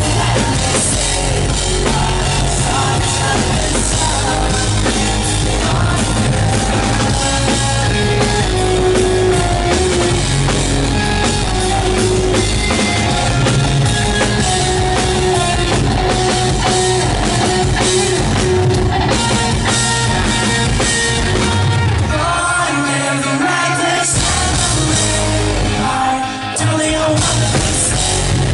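Pop-punk rock band playing live: electric guitars, bass and drum kit with a male lead vocal. Twice near the end the drums and bass drop out for a moment, leaving guitar and voice, before the full band comes back in.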